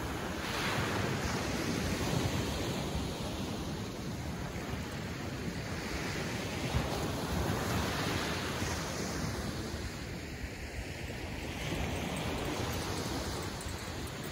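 Ocean surf breaking and washing up the shore, swelling and easing every few seconds, with wind rumbling on the microphone.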